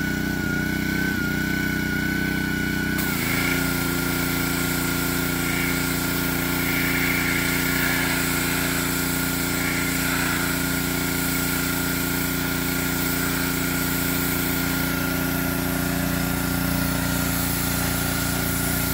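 Gas-engine pressure washer running steadily with a constant whine. About three seconds in, the spray starts: a broad hiss of water joins in and the engine settles into a slightly different steady note under the pump's load.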